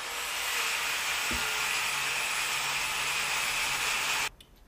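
Angle grinder cutting through a steel flail-chain link to shorten the chain: a steady, high-pitched grinding that cuts off suddenly just over four seconds in.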